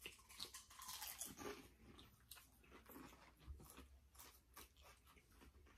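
Faint, close chewing of a mouthful of Frosted Flakes cereal with string cheese, heard as a scatter of many small, irregular crunches.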